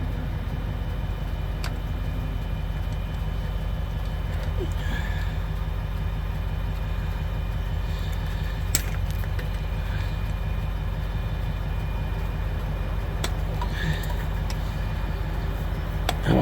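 Truck engine idling steadily, with a few light metallic clicks of hand work on the PTO solenoid.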